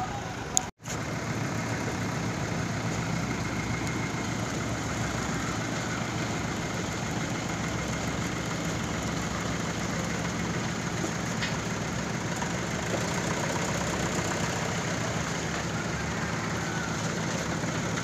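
Heavy vehicle engine, most likely the crane truck's, running steadily under a light load while a log is lifted, with a brief cut-out less than a second in.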